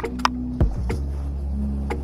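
Background music with deep, held bass notes and sharp percussive hits.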